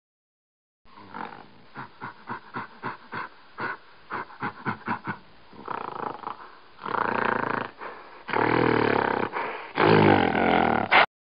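Gorilla calls: a run of short, rapid grunts for several seconds, then three long, loud roars.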